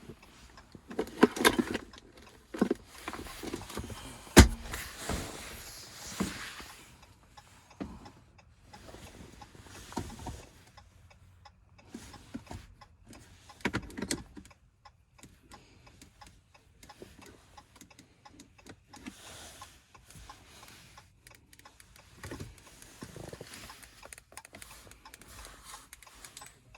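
Scattered clicks and rustling handling noises inside a car, with one sharp click about four seconds in as the loudest sound.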